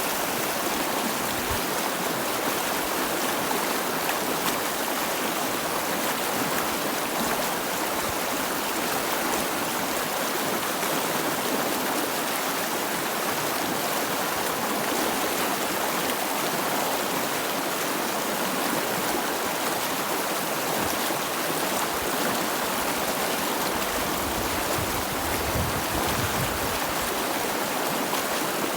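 Running water of a stream, a steady even rush and babble, with some extra low rumble near the end.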